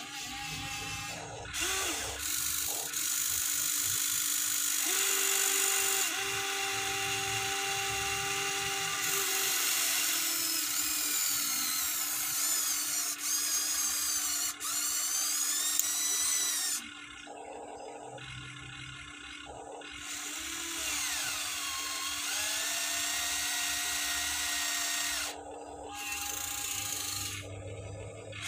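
Huina 1593 RC excavator's small electric motors and gearboxes whirring as the boom, arm and turntable move, the whine rising and falling in pitch, with a couple of short pauses between movements.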